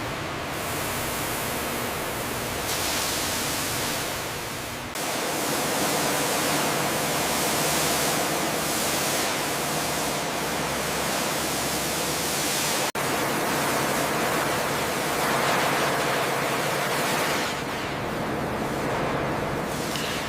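Pressure washer spraying water: a steady hiss that changes abruptly about five seconds in and again near thirteen seconds.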